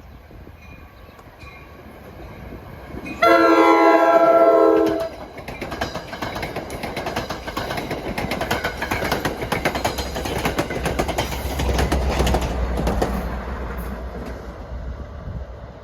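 Diesel commuter train passing: one horn blast of several notes together for about two seconds, then wheels clicking over the rail joints, building to a peak and fading as the train goes by.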